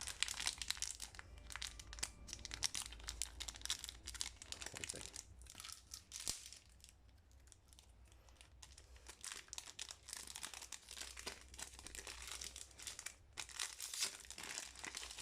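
Foil Pokémon booster pack wrapper crinkling and being torn open with the teeth, in crackly spells with a quieter stretch in the middle.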